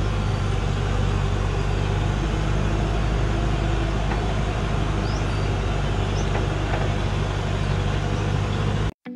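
Heavily loaded logging truck's engine running steadily under load as it pulls up a steep dirt track, a low drone with road and tyre noise; it cuts off abruptly near the end.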